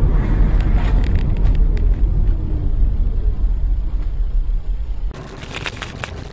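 Car engine and road noise, a heavy low rumble with a faint tone that falls over the first few seconds. It cuts off suddenly about five seconds in, leaving a quieter stretch with scattered clicks.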